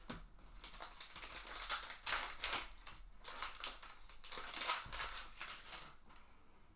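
Crinkling and tearing of a plastic trading-card pack wrapper as a pack of baseball cards is opened, in irregular crackles that fade near the end.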